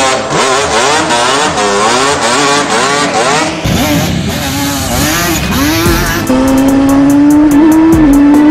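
Yamaha Banshee 350 twin-cylinder two-stroke quad engines revving hard. For the first few seconds the pitch jumps up and down in quick blips. From about six seconds one engine holds high revs with its pitch climbing slowly.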